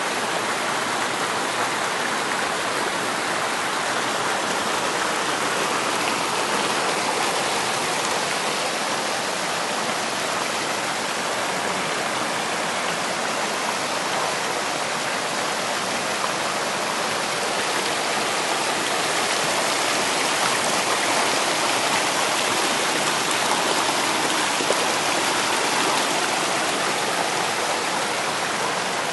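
Mountain stream rushing and splashing over boulders in small cascades, a steady, even rush of water.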